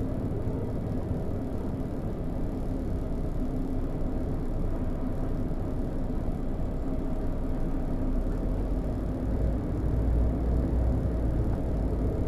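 Volvo B12BLE bus with its DH12E diesel engine running on the move, heard from the driver's side, with a steady low road-and-engine rumble and a constant electrical buzz from a faulty display. The low rumble grows stronger about eight seconds in.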